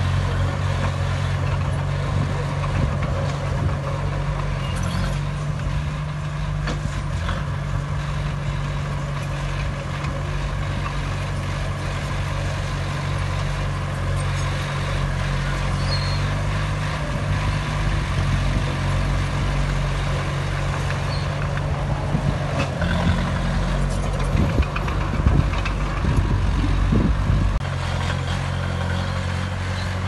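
Small crawler bulldozer's diesel engine running steadily as the blade pushes dirt and rock. Toward the end come a few louder knocks and clanks of rock and machine.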